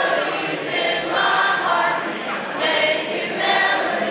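A large group of voices singing together in long, held phrases, like a standing congregation singing a hymn.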